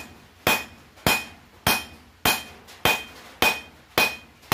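Hand-hammer blows on a red-hot half-inch round steel bar lying on the anvil, drawing it down flat. About seven strikes come evenly, roughly one every 0.6 seconds, each with a short metallic ring.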